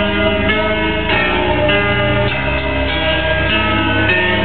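Music played loud through a car's competition (SPL) audio system: sustained chiming notes change about every half second over a strong, steady bass line.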